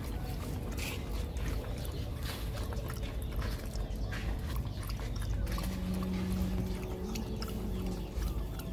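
Dogs lapping water and eating, with small wet clicks over a steady low background. A steady low hum comes in about five and a half seconds in.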